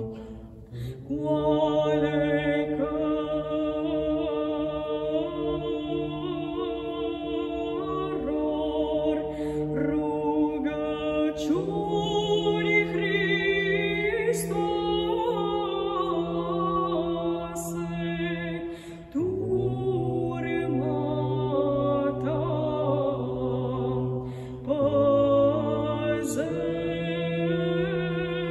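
A woman singing Byzantine psaltic chant unaccompanied, an ornamented, wavering melody over a low held drone note (ison) that shifts pitch a few times. The phrases are broken by short breaks about a second in and again near the 19-second mark.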